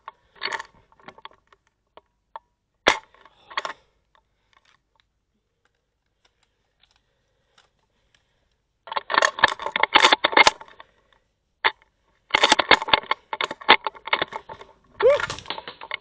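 Airsoft rifle firing in rapid bursts of sharp clicking shots, with a few single shots between. The longest bursts come about nine seconds in and again toward the end.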